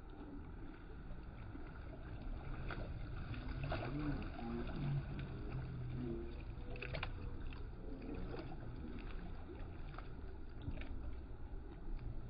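Water-park background: a low steady rumble with faint, distant voices of people talking and calling, and a few light taps or clicks.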